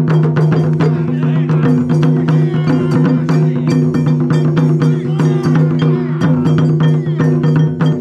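Japanese taiko drum ensemble playing a fast, dense rhythm of sharp strikes over steady low held tones.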